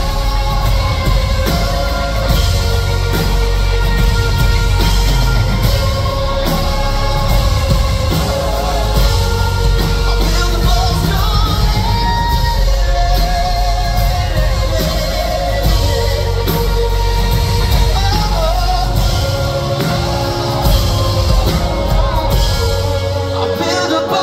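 Live pop-rock band playing loud, with a male lead vocalist singing and shouting over heavy drums and bass. The bass and drums drop out near the end.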